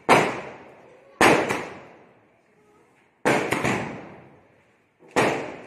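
Firecrackers bursting: about six sharp bangs at uneven intervals, some in quick pairs, each trailing off in a long echo.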